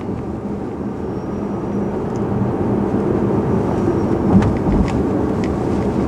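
Tesla Model S front suspension heard through a microphone on the lower shock absorber mount while driving: a steady rumble of road and tyre noise, with a few faint knocks about four to five seconds in. The lower shock mount is judged not to be where the front-axle rattle comes from.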